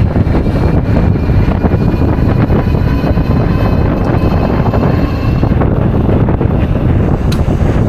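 Wind rushing over the microphone while riding a 60 V DIY e-bike, a loud steady low rumble with a faint steady high whine above it.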